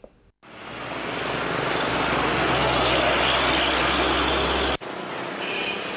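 Road traffic noise: a vehicle passing close by with a low engine hum, the sound swelling over the first two seconds. It cuts off suddenly nearly five seconds in and gives way to quieter traffic noise.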